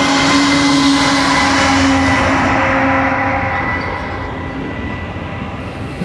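A Union Pacific diesel locomotive passing close by, its engine giving a steady hum for the first few seconds. The hum then fades into the rolling wheel-and-rail noise of the autorack freight cars going by.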